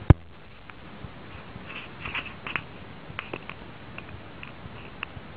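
A single loud sharp thump just after the start, then scattered light clicks and taps, with a short cluster of them about two seconds in.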